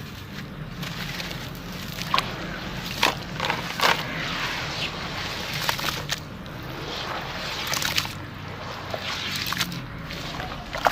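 Chunks of sand cement being dipped in water and crumbling, with wet sloshing and crumbly crackle broken by several sharp cracks.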